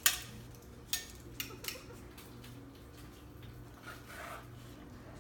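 A few sharp clicks and clacks of kitchen utensils being handled, the loudest right at the start and three more within the next two seconds, over a faint steady low hum.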